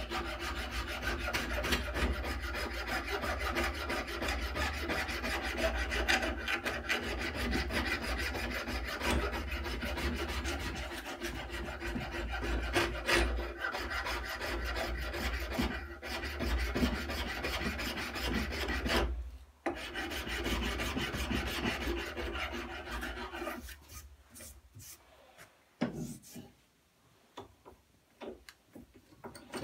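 Hand file rasping back and forth across the wooden handle scales of a knife held in a vise. The filing pauses briefly about two-thirds of the way through, resumes, then stops, leaving a few small clicks and taps near the end.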